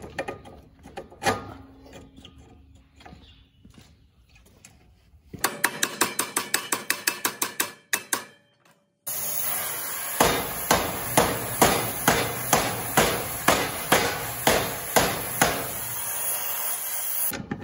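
Hammer striking steel on a planter closing-wheel arm: first a quick run of taps, about six a second, then after a short break, steady harder blows at about two a second over a steady hiss.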